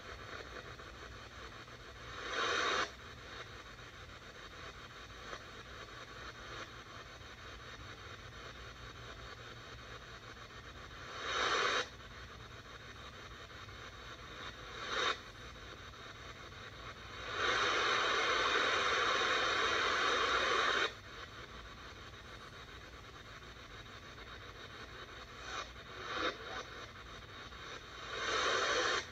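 ATS-25 DSP shortwave receiver in AM mode being tuned up the 25-metre band. Steady hiss between stations, broken by several short bursts of noisy signal and one longer burst of about three and a half seconds past the middle as the dial lands on signals.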